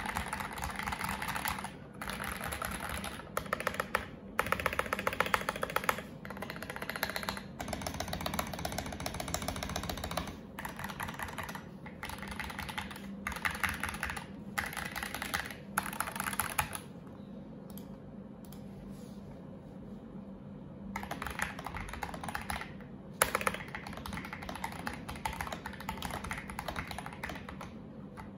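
Typing on a mechanical keyboard fitted with Akko OSA-profile World Tour Tokyo keycaps: runs of fast keystrokes broken by short pauses, with a few seconds of sparser, lighter typing a little past the middle and one sharp, louder clack about three quarters through.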